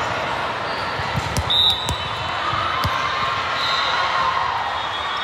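A volleyball being hit and bouncing on a hard gym floor: a few sharp thuds in the first three seconds, with a brief high squeak among them. Background chatter from people in the gym runs underneath.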